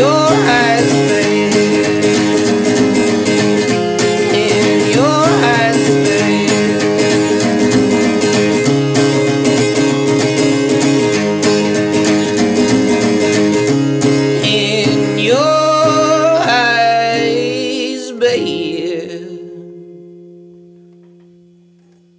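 Background song with guitar and a singing voice; about three-quarters of the way through it comes to its last chord, which rings on and fades away to silence.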